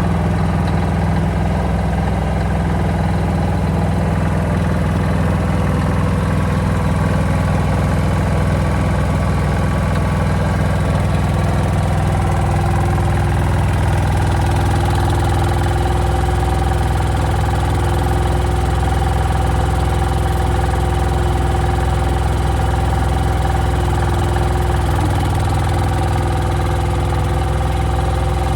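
Small diesel engine of a mini Yanmar excavator running steadily. A higher steady whine joins about twelve seconds in.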